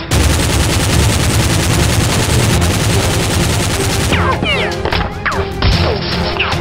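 Rapid automatic gunfire sound effect: a continuous stream of shots, added to the soundtrack rather than made by the toy blasters, with a few whistling sweeps after about four seconds.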